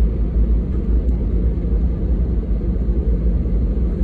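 Deep, steady cabin rumble of an Airbus A320 taxiing, heard from a seat over the wing.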